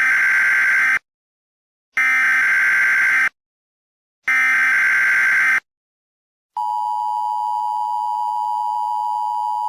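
Emergency Alert System tones: three harsh digital SAME header data bursts, each just over a second long with a second of silence between them. About six and a half seconds in comes the steady two-tone EAS attention signal, which holds to the end.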